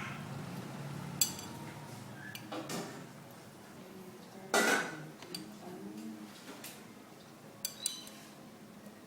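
Kitchen utensils clinking against dishes while food is prepared. There are a few light clinks, one louder clatter about halfway through, and two quick clinks near the end.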